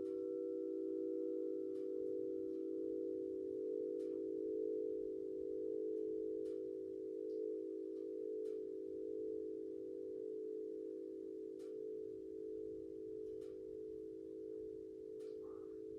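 Gorin five-ring bell chime ringing out after a strike: several close low tones hold and slowly fade, while a higher overtone dies away about four seconds in. Faint scattered crackles from a wood fire sound underneath.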